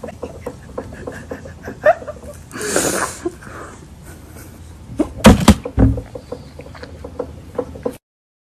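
A teenage girl crying: short sobs and sniffling breaths, with a harsh sobbing breath about three seconds in and a louder sob around five seconds in. The sound cuts off abruptly near the end.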